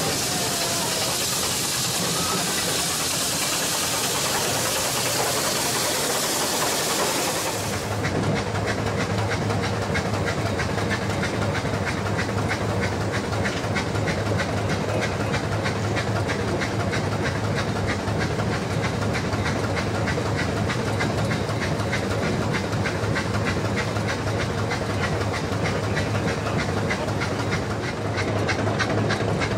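A steady, loud hiss, then, after a sudden change about eight seconds in, a steady low hum with rapid, even clicking that runs on.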